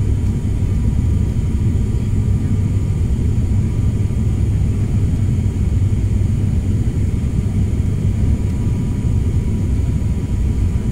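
Steady low drone of engines and airflow heard inside the cabin of a turboprop airliner descending on approach, with faint steady whining tones above the rumble.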